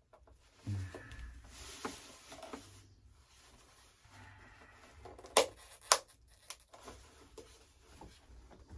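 Faint handling noise of foam and plastic model-aircraft parts being pried apart by hand, with two sharp clicks about half a second apart a little past the middle.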